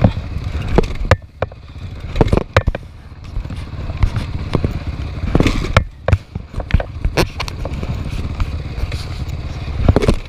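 Off-road motorcycle being ridden over rough ground: the engine runs as a steady low rumble under irregular knocks and clattering. The sound drops off briefly about a second in and again near the middle.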